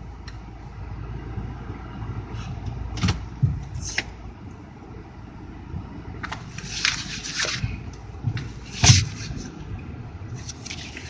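2008 Dodge Avenger running on a test drive, heard from inside the cabin: a steady low rumble with a few sharp clicks and knocks and a brief hissing rustle near the middle. The car is running normally after a broken injector wire was repaired.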